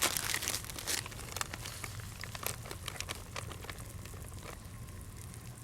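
Scattered light clicks and ticks from handling the parts of an Esbit stainless steel percolator coffee pot, over a low steady background hum.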